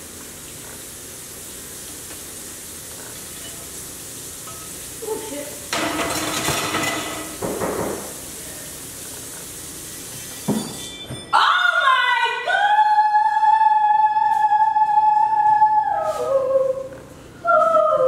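Kitchen tap water running into the sink, with pans and dishes clattering between about six and eight seconds in. About eleven seconds in it cuts abruptly to music with long held sung notes.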